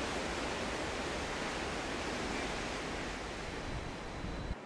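Steady rushing noise of a CRH380A high-speed train passing at speed along a snow-covered track, stirring up powder snow. The noise eases a little near the end and then cuts off abruptly.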